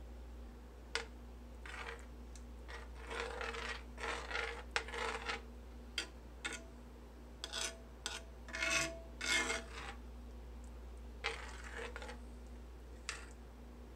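Metal spoon stirring and scraping through creamy pasta sauce in a cast iron skillet: a run of short, irregular scrapes, with a faint metallic ring during a few strokes midway.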